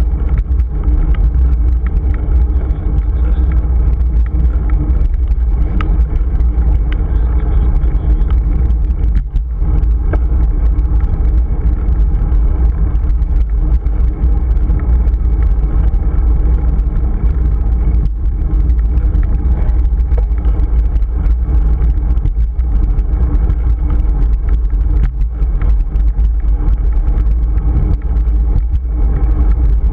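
Wind buffeting a GoPro Hero 3's microphone on a moving bicycle: a loud, steady low rumble.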